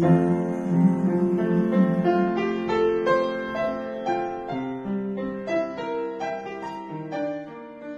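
Piano-style keyboard playing an instrumental passage of held, changing notes, slowly getting quieter as the song winds down.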